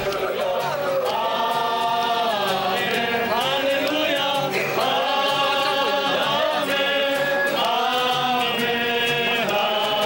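A small mixed group of young men and women singing a Christmas carol together, in long held notes.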